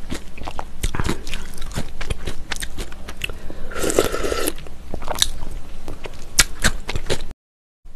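Close-miked eating of mulhoe, cold raw-fish soup with noodles: chewing and biting with many sharp wet clicks, and a slurp from a spoon of broth about four seconds in. The sound cuts out abruptly for a moment near the end.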